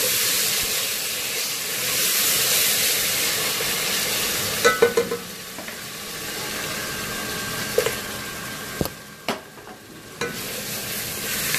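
Onions, garlic and ginger frying in hot oil in a karai, sizzling steadily while a wooden spoon stirs and scrapes the pan. The sizzle drops for a couple of seconds near the end, with two sharp knocks, then picks up again.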